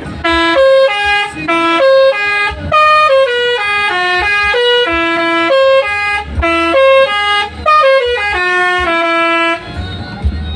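Bus telolet horn, a multi-tone air horn, playing a quick repeating tune of short notes, about three to four a second. It stops about a second before the end, leaving a low hum.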